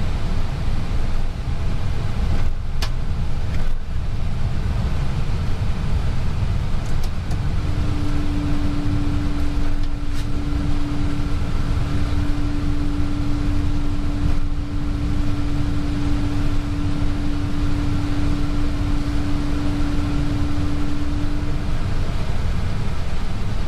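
Steady low rumble inside an Airbus A320 cockpit on the ground after landing, from the engines and air conditioning running. A steady low tone joins about seven seconds in and stops shortly before the end.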